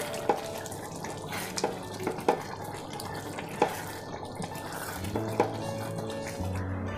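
Thick chicken and mung dal curry being stirred with a spatula in a nonstick frying pan: wet, sloppy liquid sounds with several sharp knocks of the spatula against the pan. Faint background music comes in near the end.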